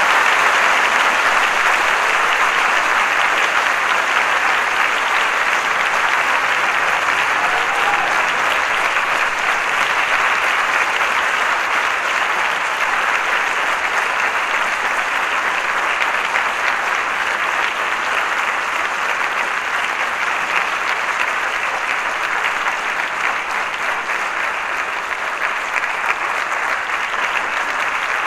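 Audience applauding steadily with dense, even clapping that eases slightly over the course of it.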